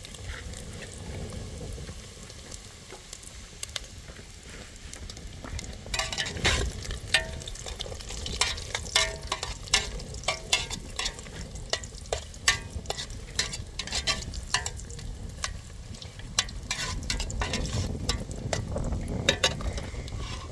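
Cooking clatter: many sharp clicks and clinks with a brief ring, as of utensils stirring and scraping in a metal pot, starting about six seconds in, over a low steady rumble.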